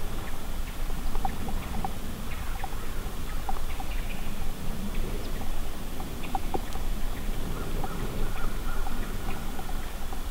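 Dawn outdoor ambience: a steady low rumble with many scattered short bird chirps and calls.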